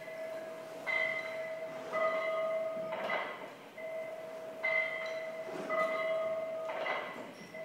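A sustained bell-like ringing tone with overtones, struck or renewed roughly once a second. Two brief rustling swishes sound over it, one about three seconds in and one near the end.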